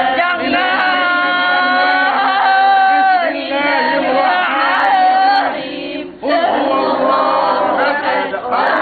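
Quran recitation, chanted aloud in long melodic phrases with held notes, breaking off briefly about six seconds in before going on.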